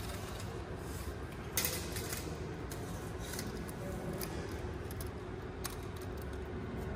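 Light metallic clicks and rattles of a steel tape measure being pulled out and set against the pipe, the sharpest about one and a half seconds in, over a steady background hum.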